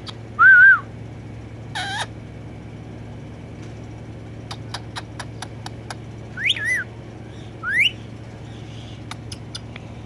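Indian ringneck parakeet giving a handful of short whistles, the loudest about half a second in and two later ones gliding up in pitch, with runs of quick sharp clicks in between.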